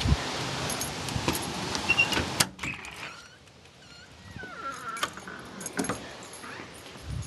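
Steady wind noise with clicks and rattles as a door is worked. About two and a half seconds in, the door shuts with a sharp click and the wind noise drops away, leaving quieter indoor clicks and rattles.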